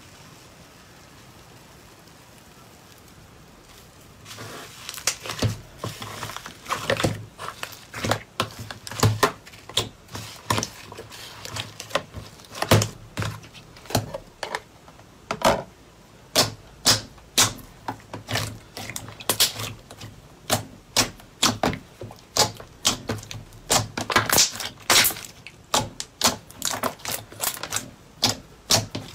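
Slime being pressed and kneaded by hand, giving sharp wet clicks and pops, about one or two a second, starting a few seconds in after a faint hiss.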